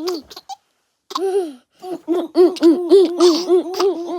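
A baby laughing in quick repeated ha-ha pulses, about five a second, broken by a short silence about half a second in.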